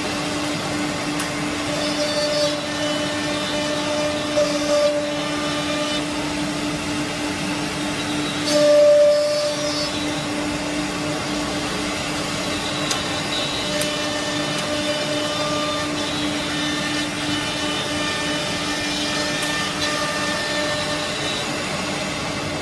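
Multi-spindle CNC router running: a steady motor hum with spindle whine and the rush of its dust extraction, the higher whine tones coming and going. There is a louder stretch about nine seconds in.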